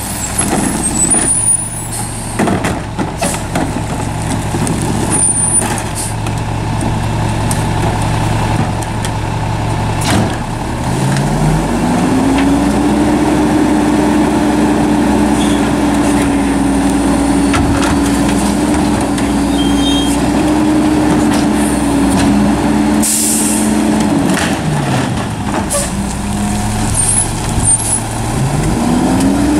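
Mack MR garbage truck's diesel engine idling, then revving up about ten seconds in and holding a steady high speed for roughly twelve seconds while the McNeilus rear-loader's packer runs, dropping back to idle and revving up again near the end. Clanks and knocks of recycling bins being tipped into the hopper come in the first seconds, and a short hiss of air comes about two-thirds of the way through.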